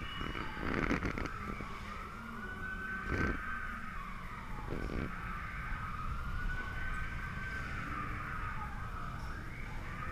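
Slow wailing siren sound effect, rising, holding and falling in pitch about every three and a half seconds, over a steady low rumble. A few loud short bursts of noise come about one, three and five seconds in.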